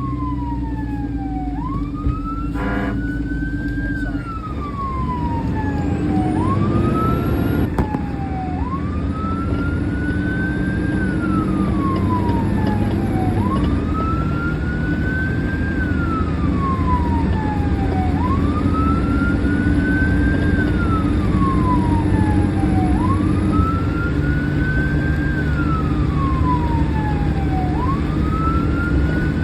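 Fire engine siren wailing in slow, even rising and falling sweeps, about one cycle every five seconds, over the steady drone of the truck's engine and road noise.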